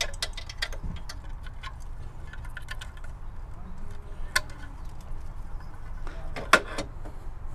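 Small plastic clicks and rattles of a wiring harness plug being handled and pushed onto a factory horn's connector, with a sharper click about four and a half seconds in and a louder knock about six and a half seconds in.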